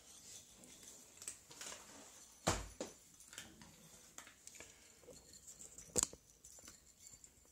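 Two cats eating small dry kibble from bowls, with scattered soft crunching and clicking. Two louder knocks stand out, one about two and a half seconds in with a dull thud, the other about six seconds in.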